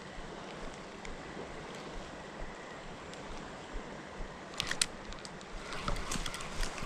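Steady rush of flowing river water. A pair of sharp clicks comes about two-thirds of the way in, and a few lighter clicks follow near the end.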